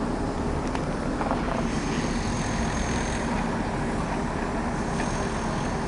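Steady rumble of engines or machinery at a construction site, with a few faint clicks early on and a thin, faint high whine that comes in about two seconds in.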